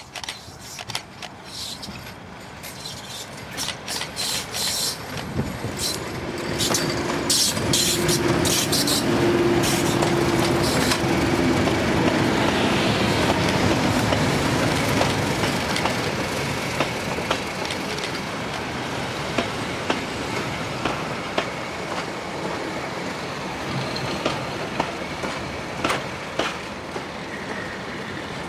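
Two Class 31 (Brush Type 2) diesel locomotives with English Electric 12SVT engines approach and pass close with a train, growing loud about five seconds in and staying loudest through the middle. The coaches then run by with their wheels clicking over the rail joints.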